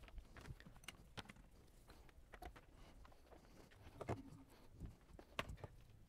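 Near silence with faint, scattered taps and knocks of handling at a workbench. The two loudest come about four and five and a half seconds in.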